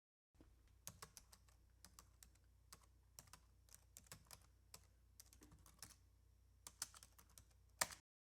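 Faint, irregular keystrokes on a computer keyboard, a few clicks a second, ending with a louder double stroke near the end.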